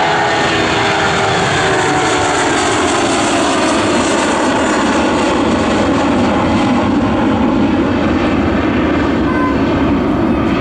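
Boeing 757-300 twin jet engines at takeoff power as the airliner climbs out, loud and continuous. A whine falls in pitch over the first few seconds as the aircraft passes, then settles into a steady rumbling roar.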